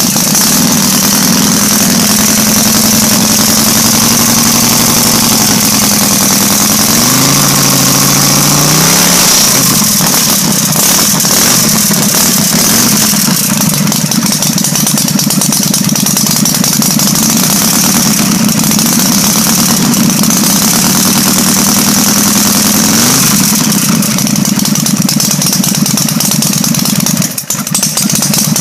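Custom chopper motorcycle's engine idling loudly and steadily, with brief rises in revs about seven seconds in and again a little past twenty seconds.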